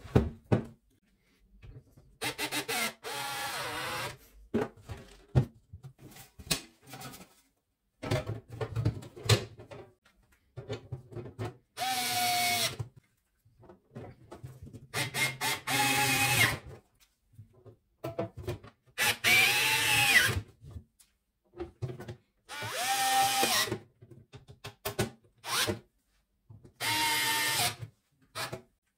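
Cordless electric screwdriver driving the screws of the welder's casing back in, in short runs of about a second each with its motor whining; clicks and knocks of the case being handled come between the runs.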